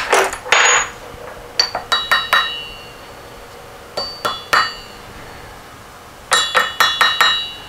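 A mallet tapping a gear and spacer down onto the nose of a Porsche 912 crankshaft, each strike giving a short metallic ring. About a dozen taps come in irregular groups, ending in a quick run of about six. The gear is a heated fit, driven home while still warm.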